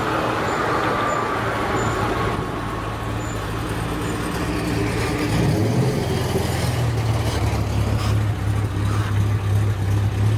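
Jaguar E-Type's straight-six engine running as the car drives past at low speed. The steady low engine note gets louder about halfway through as the car comes closest.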